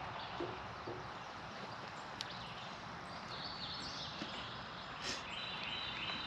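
Quiet outdoor background with faint high bird calls and a few soft clicks and taps from metal antenna hardware being handled.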